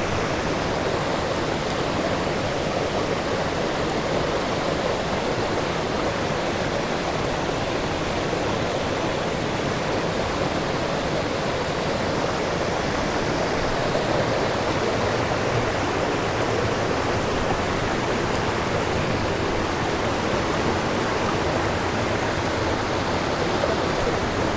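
Rushing water of a stream rapid, a steady, even rush throughout.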